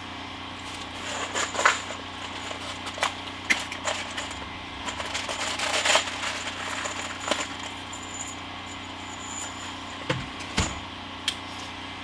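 Scattered clicks, clinks and light knocks of hand tools and hardware being handled during framing work, over a steady low hum.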